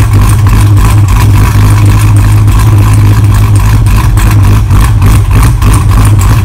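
Loud car engine running hard and steady, with a rapid pulsing throughout.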